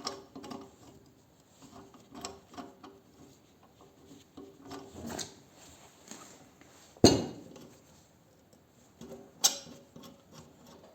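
Handling of small metal parts: light clinks and scrapes, with a sharp metallic knock about seven seconds in and another about two seconds later.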